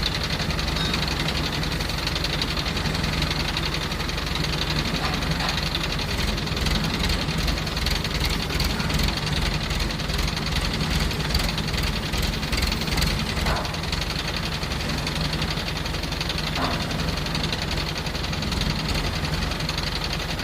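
Jaw crusher running steadily, its engine and machinery giving a constant mechanical drone with a fast, even low pulsing.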